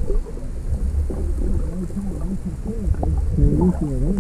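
Muffled water noise heard through an underwater camera, low and steady, with a person's muffled voice rising and falling in pitch from about a second in.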